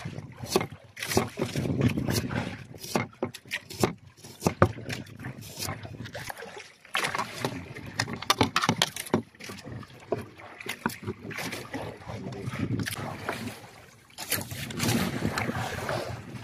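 Kitchen knife cutting onion and tomato on a wooden cutting board: irregular sharp clicks and knocks of the blade, over a steady background noise.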